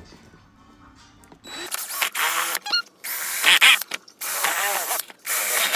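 Cordless drill with a 3/8-inch bit boring holes through a pet-button tile. Starting about a second and a half in, it runs in four short bursts of about a second each, the motor whine rising and falling with the trigger.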